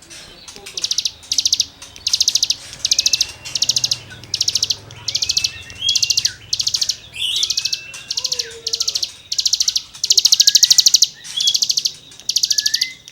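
Hill prinia (ciblek gunung) singing a fast run of buzzy, rasping bursts, about one to two a second, with thin rising whistles between them. One longer rasping burst about ten seconds in.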